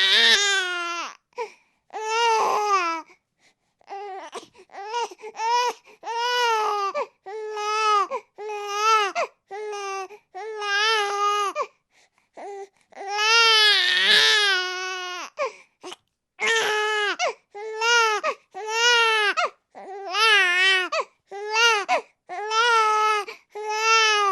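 Infant crying: a run of short wails about one a second, each rising and falling in pitch, with longer, louder cries at the start and about fourteen seconds in.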